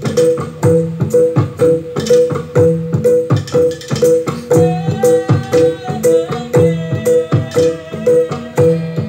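Live traditional ethnic ensemble music from Bone Bolango: tuned percussion and drums play a fast, evenly repeating pattern. About halfway through, a held melody line joins over the beat.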